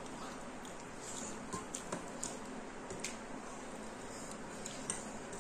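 Mukbang eating sounds: chewing and mouth smacking as rice and egg curry are eaten by hand. A few light clicks of a serving spoon and fingers on steel plates and a steel bowl come through.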